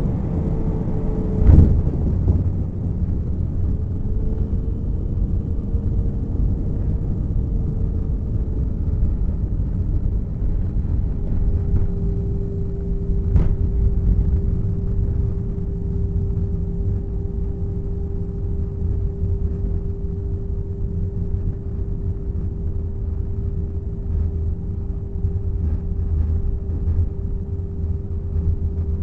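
Jet airliner cabin noise on the landing approach: a steady low rumble of engines and airflow with a steady engine hum tone over it. A single thump about a second and a half in, and a sharp click near the middle.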